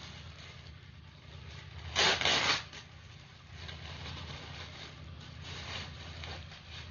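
Clear plastic bag crinkling and rustling as a cap is pulled out of it by hand. There is a loud burst of crinkling about two seconds in, lasting about half a second, followed by several lighter rustles.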